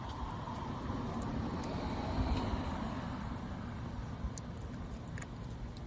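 Road traffic: a steady rush of a passing car that swells about two seconds in and then eases off.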